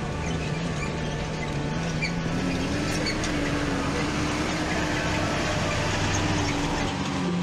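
Nissan Patrol 4x4's engine running at low revs as it crawls up a rocky track, its pitch rising a little a few seconds in, with small clicks of stones under the tyres.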